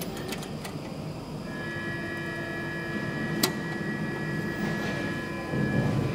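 Buttons on an elevator's stainless-steel hall panel being pressed with sharp clicks. A steady electronic beep starts about a second and a half in and holds for about four seconds.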